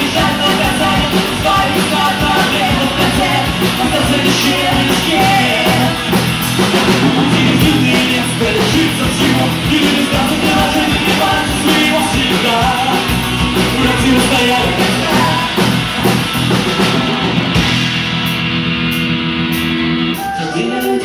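Live rock band playing loudly with a singer, guitars, bass and drums. Near the end the band thins out to held low chords.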